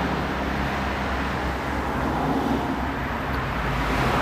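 Steady background road traffic noise, an even rumble and hiss with no distinct events.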